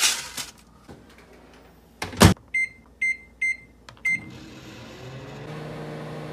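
A paper bag rustles as it is set in a microwave oven, and the door shuts with a loud knock about two seconds in. Four keypad beeps follow as 55 seconds is entered, then the microwave starts and runs with a steady hum.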